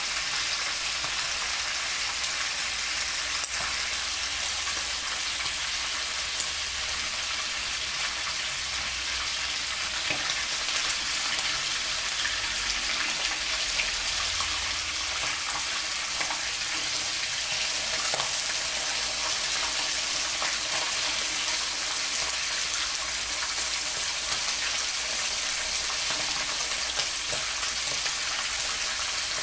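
Duck pieces deep-frying in hot oil in a pan, a steady sizzle with fine crackles, while they are fried until browned.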